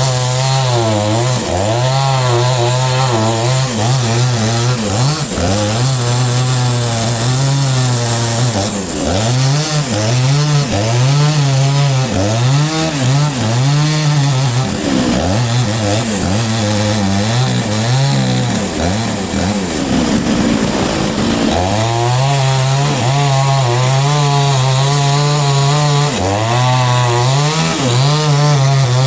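Sawmill saw running loudly and steadily while cutting a log, its hum wavering a little in pitch and sagging briefly about two-thirds of the way in.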